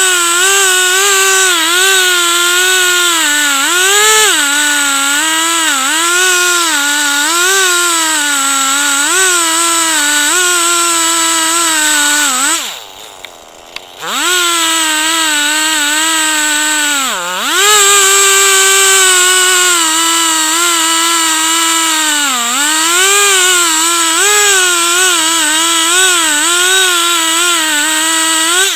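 Gas chainsaw at full throttle ripping a log lengthwise in a chainsaw mill, its engine pitch repeatedly sagging and recovering as the chain bogs under the load of the cut. About halfway through the throttle drops off for a moment and the engine revs back up, dips once more soon after, then drops off again at the end.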